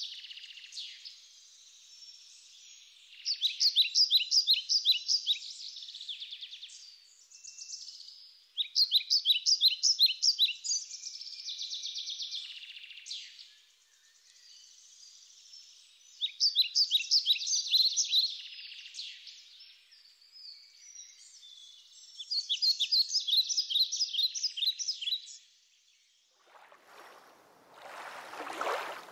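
A small songbird singing a rapid, high, trilling song in bouts of about three seconds, four times, with faint chirps between. Near the end a rushing noise comes in.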